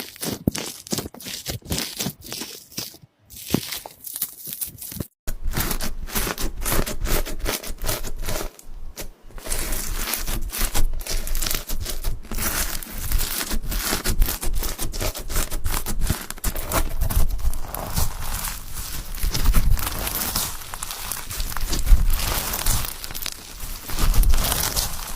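Slime being squeezed and stretched by hand, giving many small crackles and pops. About five seconds in it drops out briefly, then carries on fuller and denser.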